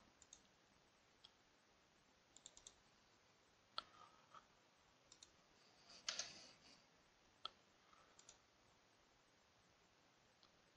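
Near silence with a few faint clicks of a computer mouse, one at a time and in a short cluster midway.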